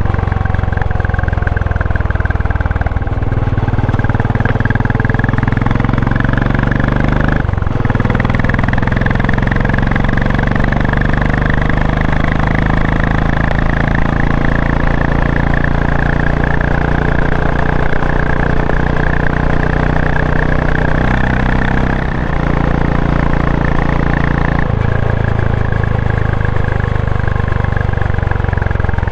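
Royal Enfield Classic 500's 499 cc single-cylinder engine running under way. It comes through a frame-mounted microphone that also picks up running noise, which the rider puts down to the chain or the gearbox. The engine note changes several times, with a short break about seven and a half seconds in.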